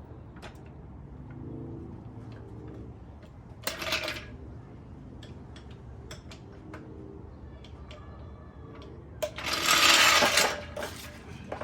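Metallic clinks and knocks of tools and car parts being handled during wheel and lug-nut work, with a louder scraping noise lasting about a second near the end.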